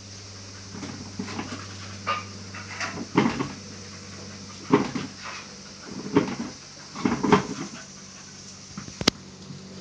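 A puppy giving short barks and growls in several bursts, over a steady low hum, with one sharp click near the end.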